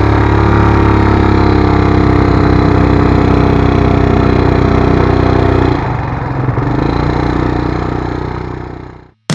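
Quad bike engine running under throttle, heard close from the rider's seat. It drops in level about six seconds in, picks up again, and fades out near the end.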